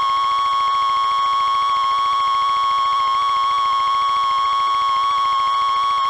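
Steady electronic drone: one high, harsh pitched tone with many overtones, held without change, over a fast low buzz.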